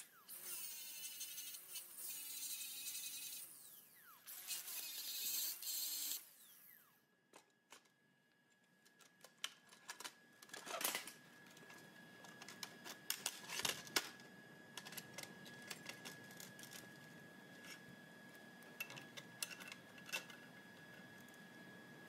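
Angle grinder whining against steel in two runs of a few seconds each, its pitch dipping under load, then winding down about six seconds in. After that come scattered light metallic clicks and taps as the steel parts are handled.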